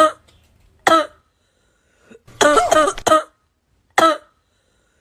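Repeated coughing in short, loud bursts: a single cough, another about a second in, a quick run of three at around two and a half seconds, and one more near four seconds.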